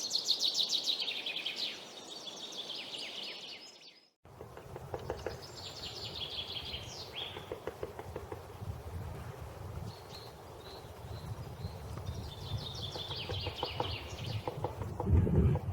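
Great spotted woodpecker chiselling at wood with irregular taps, while a songbird sings a fast descending trill three times. The sound cuts out for a moment about four seconds in, and a low rumble comes in near the end.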